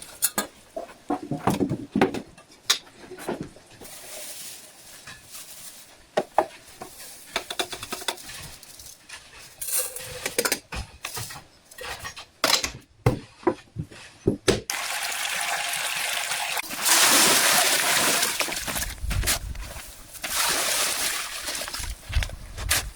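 Scattered clicks and knocks, then about fifteen seconds in a steady rush of running or pouring water starts and continues.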